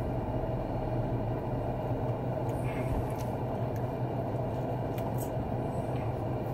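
Steady low hum of a car idling, heard inside the cabin, with a few faint clicks of biting and chewing into a soft bread roll in the second half.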